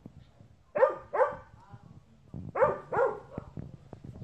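A dog barking: two quick double barks, the first pair about a second in and the second about a second and a half later.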